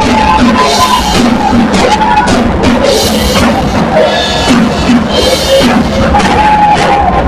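Loud live worship music driven by a drum kit, steady drum hits with cymbal crashes washing over them every second or two, and held melodic notes above.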